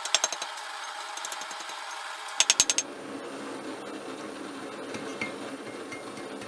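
Propane-fired double-burner gas forge running with a steady hiss, with two quick runs of light hammer taps on steel and the anvil near the start and about two and a half seconds in. About three seconds in the forge hiss gives way abruptly to a duller, lower background with a few faint clicks.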